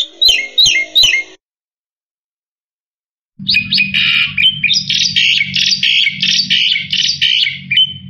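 Black-winged starling (jalak putih) singing: a quick run of four sharp chirps, then after a pause of about two seconds a long, fast chattering phrase of repeated notes, about three a second, with a low hum underneath.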